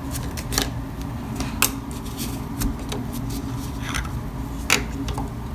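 Scattered sharp clicks and taps of a plastic hose fitting and clamp being pushed onto and locked over a sink faucet's aerator, about five separate knocks over a steady low hum.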